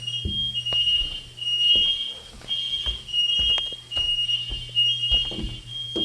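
Household smoke alarm beeping: a shrill high-pitched tone repeating about twice a second, set off by smoke from cooking, with a few knocks beneath it.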